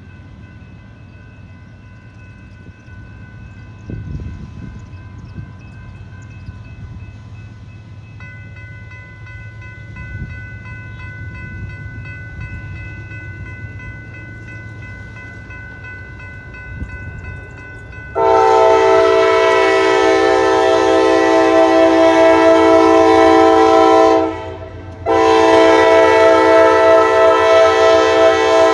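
Railroad crossing signals active, an electronic crossing bell ringing faintly and steadily over a low rumble. About two-thirds of the way in, the approaching Norfolk Southern freight train's locomotive horn sounds loud in a long blast, breaks off for under a second, and starts again.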